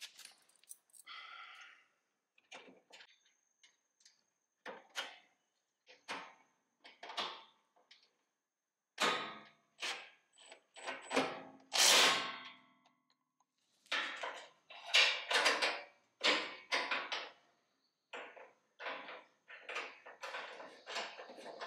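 Hands handling small metal bolts and washers and a metal skid grille panel during fitting: scattered clinks, knocks and scrapes, louder and closer together in the middle.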